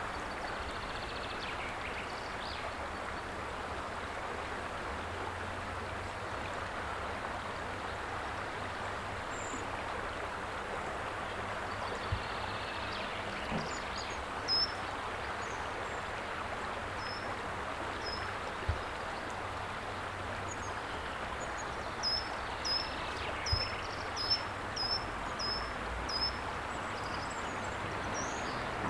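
Steady rush of water along a pebbly shore, with a small bird giving short high chirps now and then, in a quick run of about a dozen chirps in the second half. A few soft knocks are also heard.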